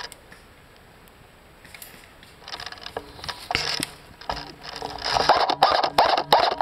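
Airsoft guns firing a quick string of shots, their mechanisms clacking with each shot. The shots start about two and a half seconds in and come faster and louder toward the end.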